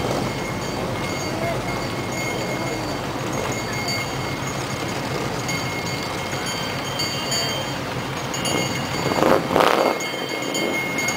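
Outdoor parade street noise: a steady low rumble of vehicle engines with faint steady high tones over it, and two short, loud noisy bursts about nine seconds in.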